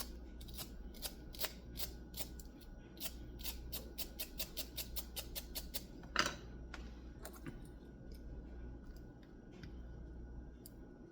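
Soldering iron tip being scraped clean of oxidation: rapid scratchy strokes, several a second, with one louder stroke about six seconds in, after which the scraping stops and only quieter handling follows.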